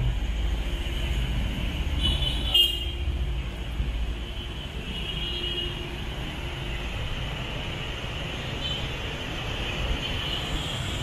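Street traffic with a steady low rumble, heavier in the first few seconds, and short vehicle horn toots about two and a half and five seconds in, with a fainter one near the end.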